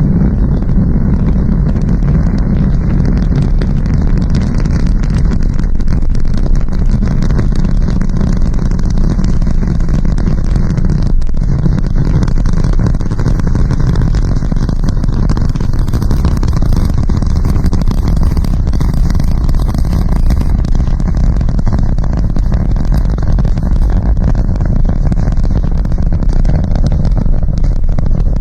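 Rocket engines at full thrust during launch: a loud, steady, deep rumble with a constant crackle over it.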